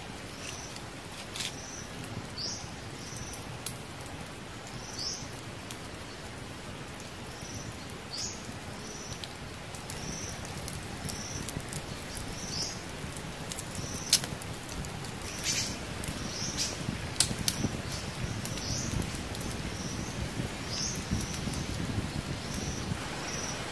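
A bird calling over and over with short high chirps, about one a second, over a wood fire crackling with scattered sharp pops.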